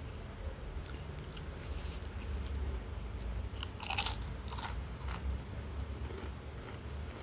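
A person chewing close to the microphone, with a cluster of sharp crunches from biting into crunchy food about four to five seconds in, the loudest one near four seconds.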